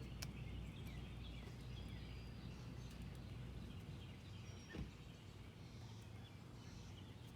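Faint, scattered short chirps of small birds over a steady low outdoor rumble, with one dull thump about five seconds in.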